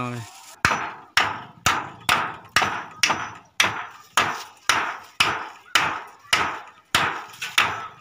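A hand hammer strikes a wooden post about fourteen times in a steady rhythm, roughly two blows a second, each with a short ring.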